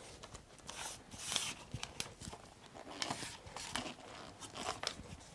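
Vortex Radian carbon fibre tripod being unfolded, its legs swung apart and handled. The sound is faint, scattered rubbing and scraping with light clicks from the leg joints.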